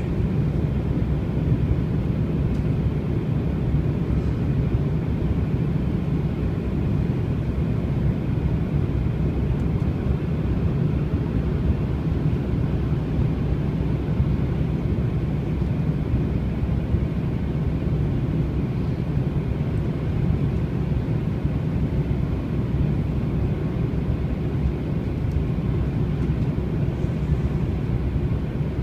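Steady low rumble of an airliner cabin in flight: jet engine and airflow noise heard from inside the cabin, even and unchanging.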